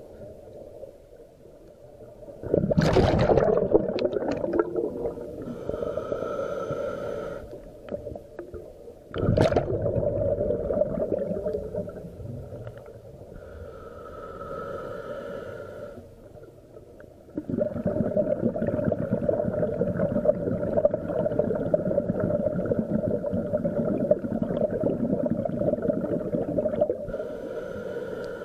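Scuba regulator breathing underwater: a hissing inhale with a faint whistle, then a long rumble of exhaled bubbles, about three breaths in all.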